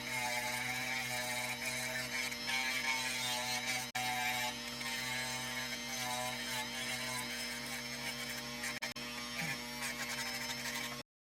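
Small electric lapidary sanding tool running steadily while an opal is ground against it, with a constant motor hum and higher tones that waver slightly as the pressure changes. The sound drops out briefly twice and cuts off abruptly near the end.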